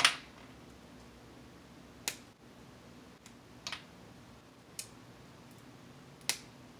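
Cooked crab shell being cracked and picked apart by hand: five sharp cracks a second or two apart, the first the loudest.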